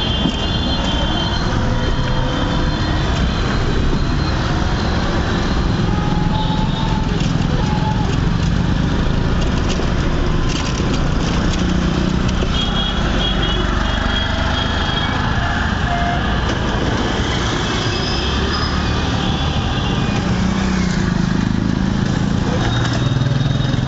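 Street traffic noise: a steady wash of car and motorcycle engines and tyres, with a horn sounding a couple of times, about halfway through and near the end.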